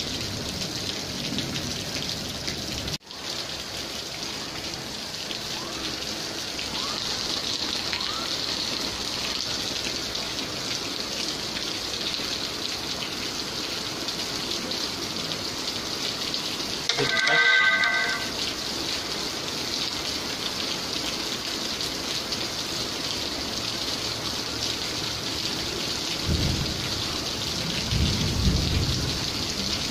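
Heavy rain pouring steadily on a lawn and paved yard, a dense even hiss, with a brief cut in the sound about three seconds in. About halfway through, a short pitched tone sounds for about a second, and near the end low rumbles of distant thunder come twice.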